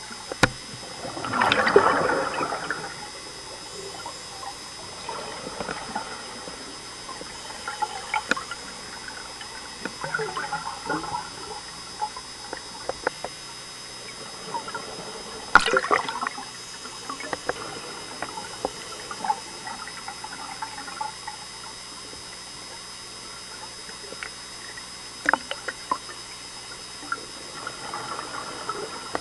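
Scuba diver's exhaled bubbles gurgling out of the regulator, heard underwater: a loud burst about a second in, then fainter bursts every few seconds. A few sharp clicks and a faint steady high whine sit under it.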